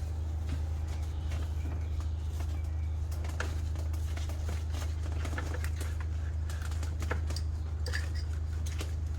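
A steady low hum throughout, with light clicks and paper rustling from about three seconds in: tissue being pushed into the open water-pump holes of a V8 engine block.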